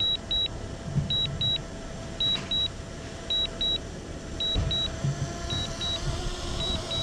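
DJI Mini 2 remote controller sounding its alert as high double beeps, one pair about every second, the warning given while the drone is on Return-to-Home and landing. A faint steady hum and low rumble run underneath.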